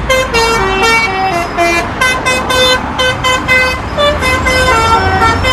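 Indonesian 'telolet' multi-tone bus horn playing a quick tune of stepped notes, several a second, over a steady low rumble.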